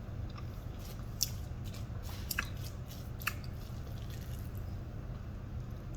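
A person eating a meal of cracked wheat: soft chewing and mouth sounds, with a few short light clicks scattered through, over a steady low hum.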